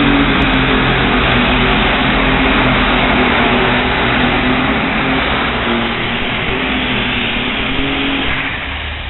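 Competition pulling tractor's engine at full throttle, loud and unbroken, as it drags the sled down the track. The sound eases off somewhat near the end.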